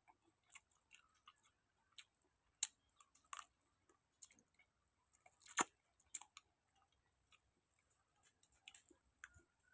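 A person chewing and biting food, with scattered faint clicks and crunches; the sharpest crunches come about two and a half and five and a half seconds in.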